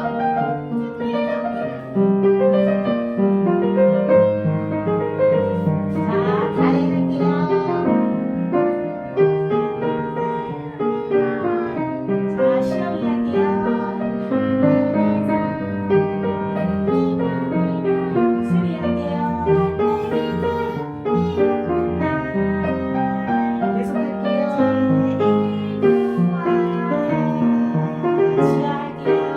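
Piano accompaniment to a Korean children's song, with a group of third-grade children singing along faintly, their voices barely heard over the piano.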